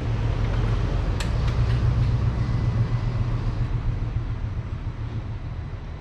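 Polaris RZR side-by-side engine running at idle just after being switched on, a low steady rumble that is loudest over the first few seconds and then settles.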